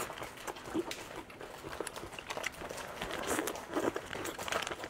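Small plastic snack sachets crinkling in the hands and being torn open, crackling on and off.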